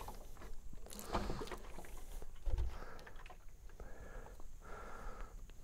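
Quiet handling of a freshly sawn cherry board: faint clicks, scrapes and light knocks, with one soft thud about two and a half seconds in. The sawmill is not running.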